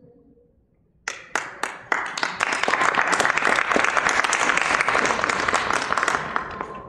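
About a second of near silence, then a few scattered claps that quickly swell into a full audience applauding, easing off slightly near the end.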